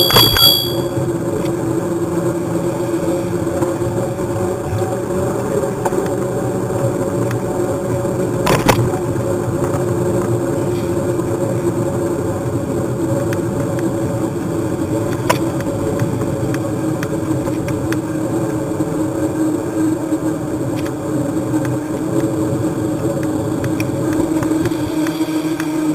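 Steady humming drone with road rumble, picked up by a camera riding along on a bicycle. There is a sharp knock about eight and a half seconds in and a fainter one around fifteen seconds.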